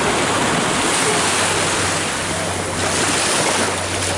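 Ocean surf and wind rushing, with a steady low engine hum underneath from about a second and a half in.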